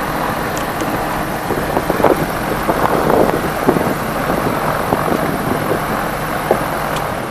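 Light aircraft's reduction-geared piston engine running steadily at low power, turning the propeller, heard from inside the cockpit.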